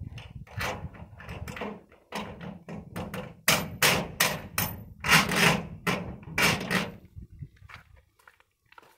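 Cordless drill run in repeated short bursts, drilling into the steel framing at the edge of a fibre-cement wall panel. The bursts grow louder about halfway through and stop about two seconds before the end.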